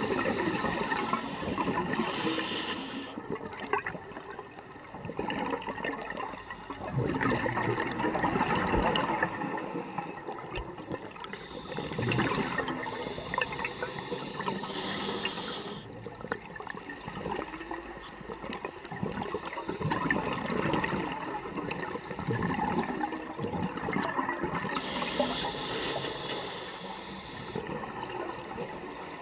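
A scuba diver breathing through a regulator underwater: bubbling, gurgling exhalations alternating with a few longer hissing inhalations.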